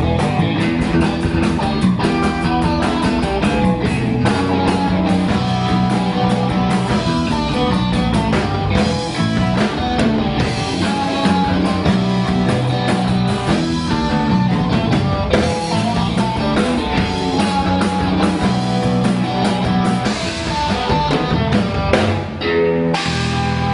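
Live blues band playing: guitar over a drum kit with a steady beat. Near the end the drumming stops and a low chord is held.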